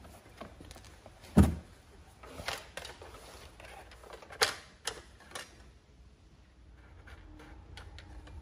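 Scattered knocks and clicks of a plastic oil jug and the engine's oil-fill cap being handled at the filler neck, the loudest knock about one and a half seconds in. It goes quieter after about six seconds.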